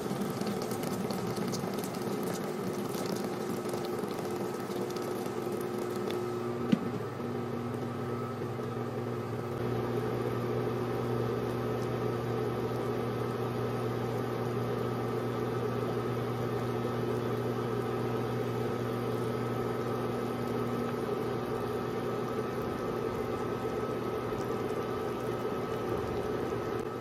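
A pot of bulalo broth with onion, garlic and peppercorns bubbling at a rolling boil over a steady hum. During the first few seconds water is poured in and splashes. A single sharp click comes about seven seconds in.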